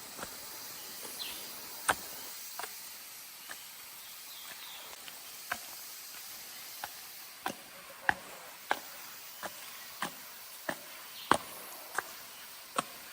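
Footsteps climbing trail steps: short sharp treads, sparse at first and coming about one or two a second in the second half, over a steady faint high-pitched hiss.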